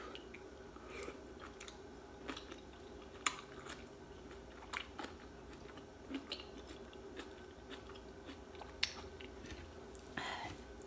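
A person chewing soft soup vegetables with quiet mouth sounds and scattered faint clicks, over a faint steady hum.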